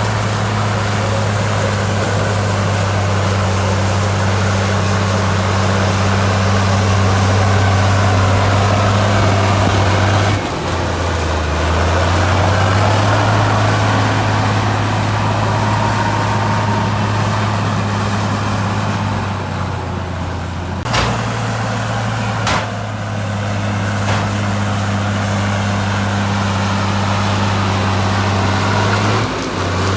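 Heavy diesel engine of earthmoving equipment running steadily with a low hum. The engine note shifts abruptly a few times, and two sharp clacks come about 21 and 22 seconds in.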